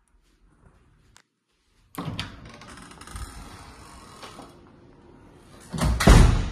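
An apartment entry door with an electronic lock is unlatched with a sharp click and pushed open, with rustling handling noise as it swings. A loud bump comes near the end.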